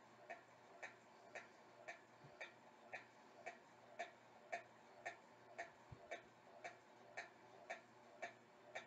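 Faint, steady ticking of a clock, about two even ticks a second.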